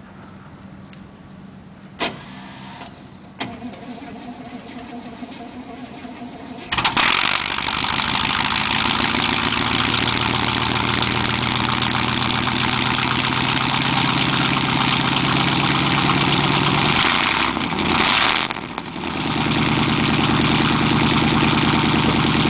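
1988 Chevrolet 5.0-litre V8 cold-started after a hard start: two clicks, then about seven seconds in the engine cranks and fires and runs fast and loud. Around eighteen seconds in it stumbles and nearly dies, then picks up again and settles into a steady idle.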